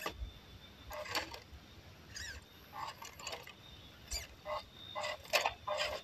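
WPL C24 RC crawler's electric motor and gearbox whirring in short stop-start bursts as the throttle is worked to crawl it over a rock, a few of the bursts sliding up in pitch.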